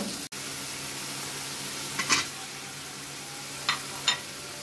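Spice paste sizzling steadily in oil in an aluminium wok, with a metal spatula scraping and knocking against the pan, once about two seconds in and twice more near the end.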